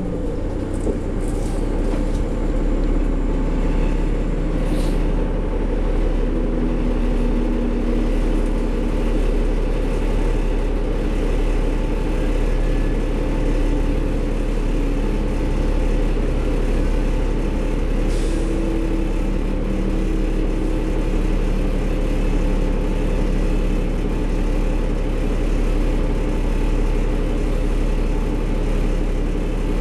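Cabin sound of a New Flyer D40LF diesel transit bus under way: its Cummins ISL diesel engine and drivetrain run steadily with road noise, and there are a few brief rattles.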